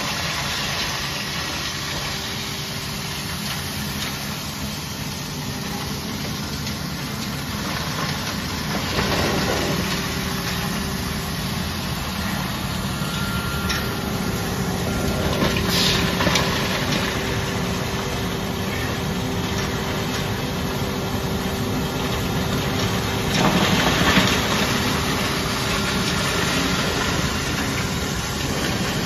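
Charcoal hammer crusher running steadily, its electric motor humming under the clatter of hammers breaking up charcoal lumps, with a few brief louder surges of crushing noise.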